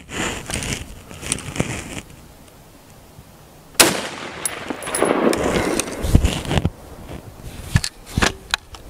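A single 5.56 rifle shot from an AR-15 (Smith & Wesson M&P15) firing 55 grain full metal jacket, about four seconds in, its report echoing on for about two and a half seconds.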